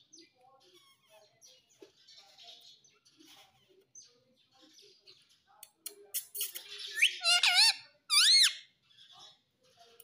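Indian ringneck parakeet making soft, quiet chattering sounds and a few clicks, then two loud, shrill calls with a wavering pitch near the end, the first starting with a sharp upward sweep.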